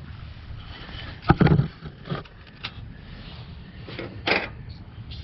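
A few separate knocks and clicks of handling under the hood, with one louder thump about a second in and a shorter sharp clack near the end.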